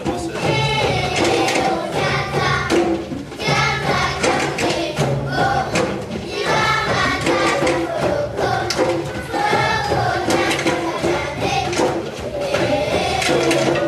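A choir of children singing in unison over African hand drums, the sung phrases lasting one to two seconds with short breaks, over a steady drum rhythm.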